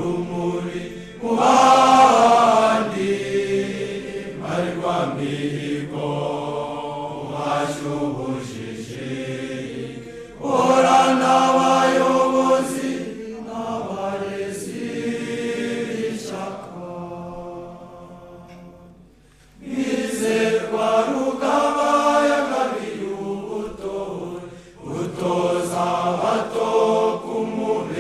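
A choir singing a slow chant in long phrases, with short breaks between phrases about ten and nineteen seconds in.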